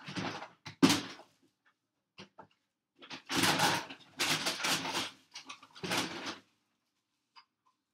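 Rustling and clattering of things being moved about while searching, with a sharp knock about a second in and a longer spell of rustling for about three seconds from about three seconds in.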